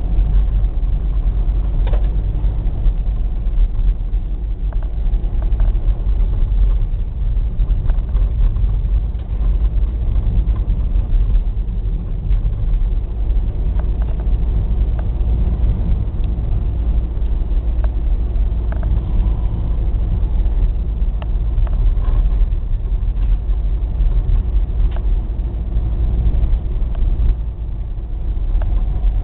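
Steady low rumble of a vehicle driving, heard from inside the cab: the engine running and tyres rolling on a snow-packed road, with a few faint clicks and rattles.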